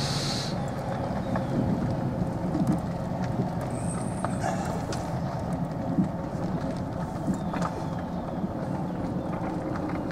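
Golf cart driving slowly on a paved lane: steady running and tyre noise, with a few light knocks and rattles from the cart along the way.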